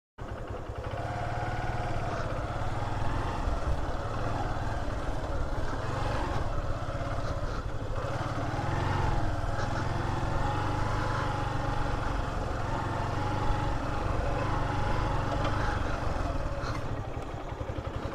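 Motorcycle engine running steadily while the bike is ridden, heard from the rider's position on the bike. It starts just after the beginning.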